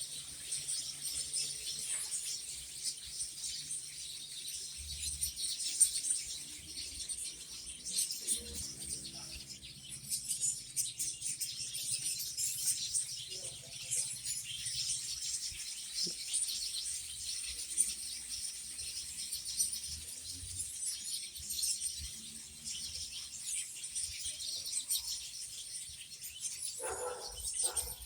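Many small birds chirping at once: a steady chatter of high, overlapping chirps.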